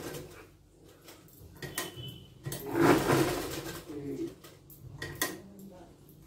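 Cloth rustling and light clicks as blouse fabric is shifted and set under a sewing machine's presser foot while the machine stands still, with a louder stretch of handling about halfway through.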